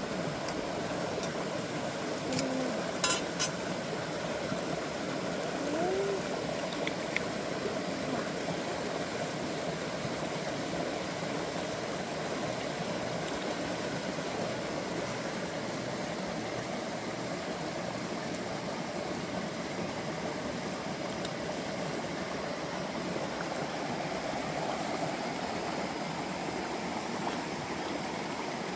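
Shallow rocky stream running steadily, an even rush of water over stones. A few sharp clicks come about three seconds in.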